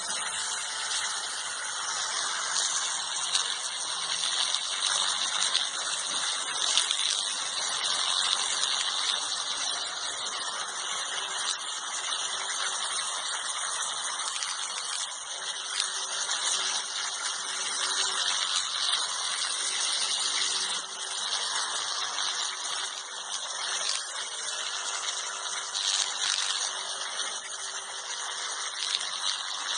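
Electric toothbrush switched on and running with a steady high buzz, likely held against the cat's fur. It starts abruptly.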